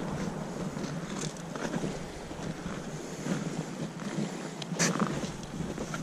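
Steady wind noise buffeting the microphone, with a few brief knocks.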